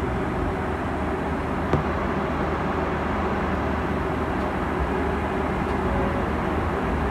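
Steady cabin noise inside a Boeing 737-800 at cruise altitude: the even rumble of the jet engines and airflow, with one brief click a little under two seconds in.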